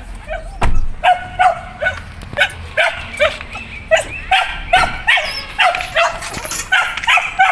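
A dog barking over and over in quick succession, about two or three barks a second.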